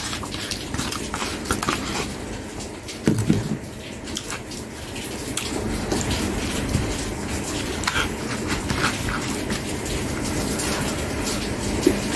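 Close-miked eating sounds: chewing and mouth smacks, with short clicks and scrapes of a metal spoon against a disposable bowl and a louder cluster about three seconds in.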